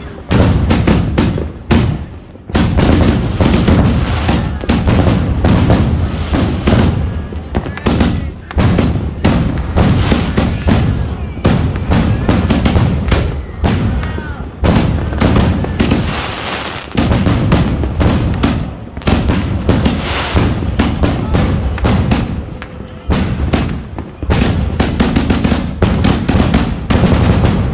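Consumer aerial firework shells fired one after another from a milk-crate rack of mortar tubes: a rapid, nearly unbroken barrage of launch thumps and bursting bangs, with only brief lulls.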